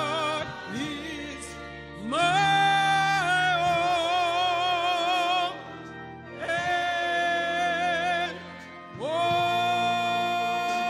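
Gospel singing with organ: three long phrases, each a held note with vibrato and short breaks between them, over sustained low organ chords.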